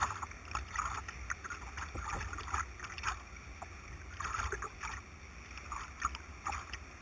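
White water splashing around a kayak and its paddle strokes, heard through a GoPro housing mounted on the boat: irregular splashes over a steady low rumble.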